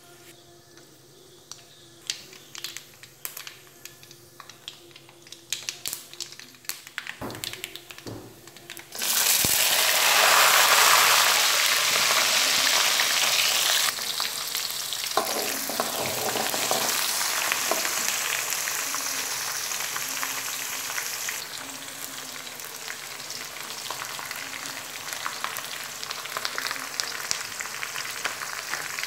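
Mustard seeds popping in hot oil, scattered sharp pops coming more and more often. About nine seconds in, sliced garlic goes into the oil with a sudden loud sizzle, which settles into steady frying while being stirred.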